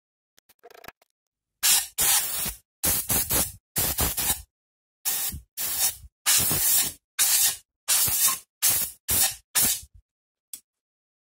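Compressed-air blow gun giving about a dozen short blasts of hissing air, one after another, over a milled aluminium part and the machine vise holding it.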